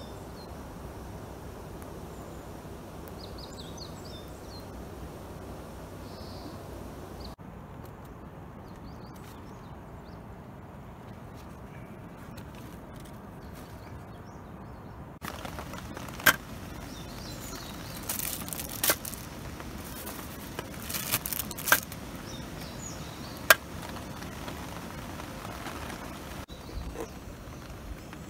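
Opinel folding knife slicing okra on a cutting board, from about halfway through: several sharp knocks of the blade on the board, a few of them loud. Before that, steady outdoor background noise.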